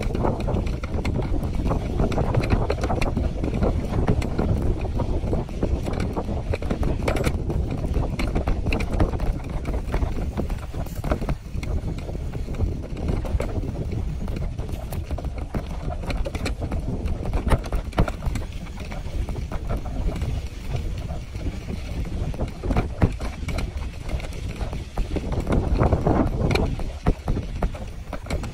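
Wind buffeting the microphone on a moving bicycle, a steady heavy rumble. Scattered knocks and rattles come through as the bike and its mesh basket jolt over a bumpy dirt track.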